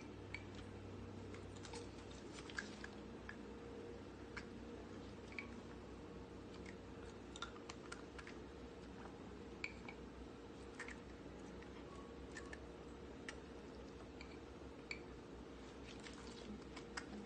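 Chihuahua chewing small bits of hand-fed food, with faint scattered clicks of teeth and mouth, over a steady low hum.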